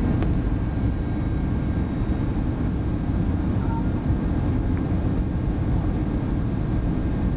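Steady in-flight cabin noise of a Boeing 757-200: the low rumble of its engines and the rush of air past the fuselage, even throughout.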